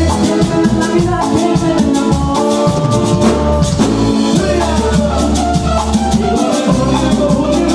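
A live Latin band plays, loud and steady: sustained keyboard-like chords and melody over a driving beat, with a metal güiro scraping in an even rhythm several times a second.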